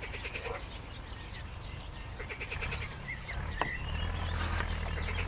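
Pond frogs croaking in short trains of rapid pulses, a few times, with birds chirping briefly in the background.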